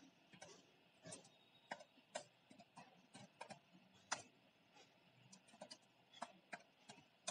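Computer keyboard being typed on: faint, irregular key clicks, with one louder keystroke about four seconds in.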